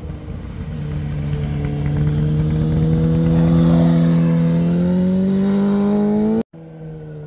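Naked sport motorcycle accelerating out of a bend and passing close by, its engine note rising steadily in pitch and loudest about halfway through. A cut near the end switches abruptly to a quieter, more distant motorcycle engine.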